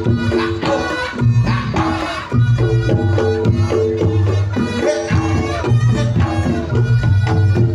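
Reog Ponorogo ensemble music (tabuhan reog): fast, busy drumming over repeating pitched gong-chime notes and a low sustained tone, with a wavering melody line above.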